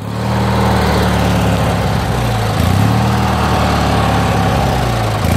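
Bolens ST10 garden tractor's swapped-in big twin-cylinder engine running steadily, a low, even engine note that wavers slightly in pitch now and then.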